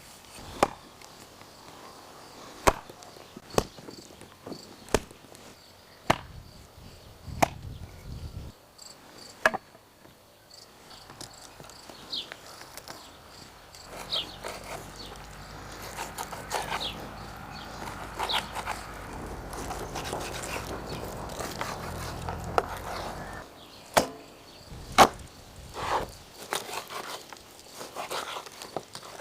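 Sharp knocks and clicks every second or two, with a stretch of rustling over a low rumble in the middle and a few more knocks near the end.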